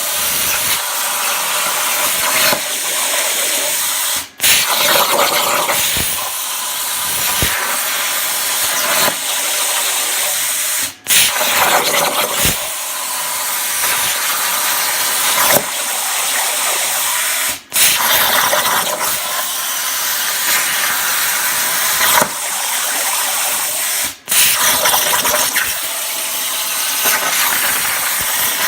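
Langmuir Crossfire CNC plasma cutter cutting: a steady, loud hiss of the plasma arc and its air jet, cutting out for a moment four times at even intervals.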